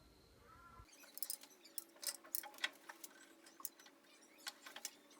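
Irregular small clicks and light taps of metal pen-kit parts being handled, with the twist mechanism turned to run the refill tip out. The clicks start about a second in.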